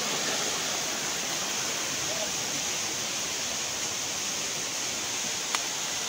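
Steady rush of a waterfall and the rocky stream below it, with one sharp click near the end.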